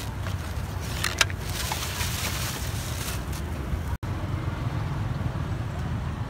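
Steady low outdoor rumble of traffic and wind on the microphone, with plastic bags and a foam food box crinkling and clicking as they are handled during the first three seconds. The sound cuts out for an instant about four seconds in.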